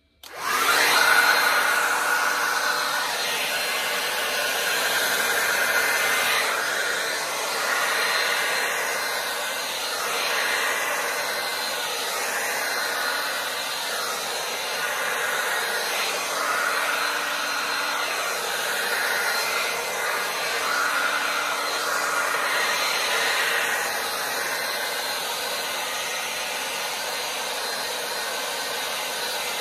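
Hair dryer switched on, then running steadily as it blows wet acrylic paint across a canvas in a Dutch pour. Its rushing air starts abruptly and swells and eases slightly as it is moved.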